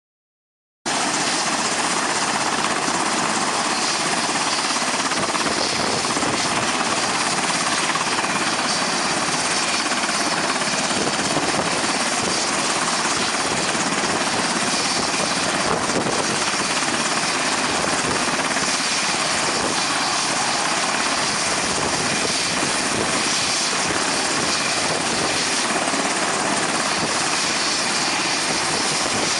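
Remote-control scale Black Hawk helicopter model with its main rotor spinning, a steady whir that starts abruptly about a second in and holds even throughout.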